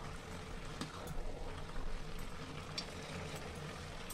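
Grated carrots for carrot halwa simmering in a steel pan, a steady low hiss as their water cooks off, with a few light clicks of a metal spatula stirring against the pan.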